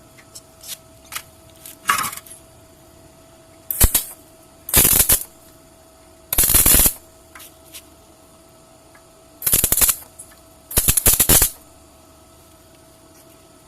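Arc welding in short tacks on steel: five or six crackling bursts, each about half a second long, with a faint steady hum and a few light clicks between them.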